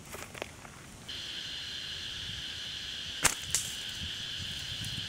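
A steady, high-pitched insect drone starts suddenly about a second in and holds evenly. A little past three seconds two sharp cracks, about a quarter second apart, are the loudest sounds, and faint crackles of leaf litter come before the drone.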